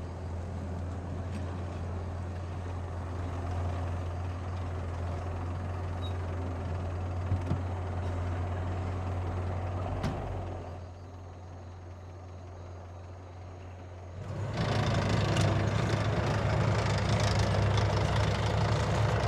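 Vehicle engine running with a steady low hum, dropping a little partway through and then growing louder about fourteen seconds in.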